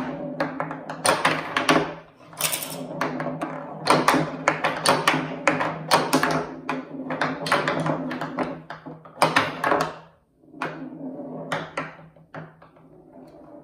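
Steel pinballs rolling and clattering on a baltic birch plywood playfield, in rapid, irregular knocks and clicks against the wooden rails, targets and flippers. The knocking thins out and gets quieter near the end.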